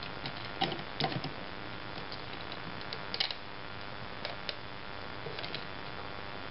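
3D-printed plastic robot parts clicking and knocking as they are handled and fitted together. A handful of scattered faint clicks sound over a steady hiss.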